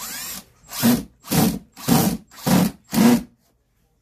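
Cordless drill driving a screw into the cabinet frame: a short rising whine as the motor spins up, then five short bursts about half a second apart as the trigger is pulsed to run the screw in tight.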